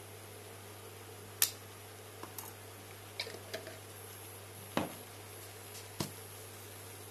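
Rice vermicelli and cabbage frying in a stainless-steel wok: faint sizzling with a handful of sharp pops and clicks, the loudest about a second and a half in and again near five seconds. A steady hum from the cooktop runs underneath.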